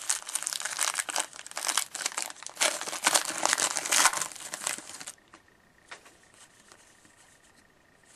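Wrapper of a 2013-14 O-Pee-Chee hockey card pack being torn open and crinkled by hand, stopping abruptly about five seconds in. A few faint clicks of the cards being handled follow.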